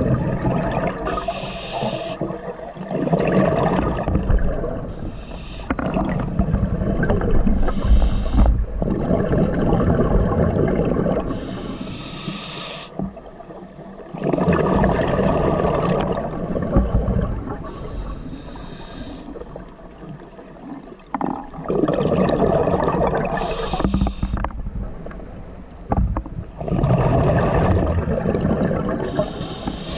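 Scuba diver breathing through a regulator underwater: a short hissing inhale, then a longer gurgling rush of exhaled bubbles, repeating about every five seconds.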